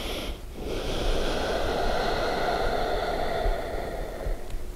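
A man breathing deeply and audibly while holding a yoga locust pose with his legs lifted: one long breath of about four seconds, starting about half a second in, with short pauses either side.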